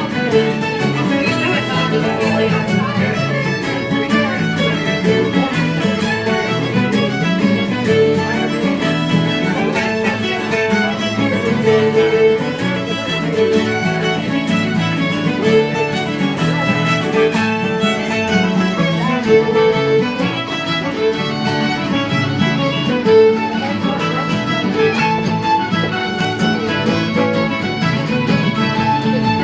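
Fiddle playing a pipe jig with guitar accompaniment, as a live traditional session band.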